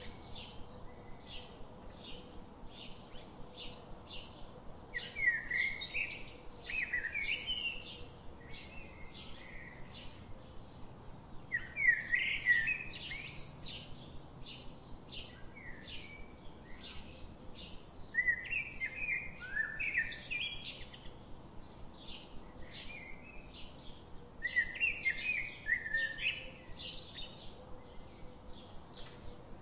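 Birds chirping: one short high chirp repeated steadily about two to three times a second, with four louder bursts of warbling song roughly six seconds apart, the loudest about twelve seconds in.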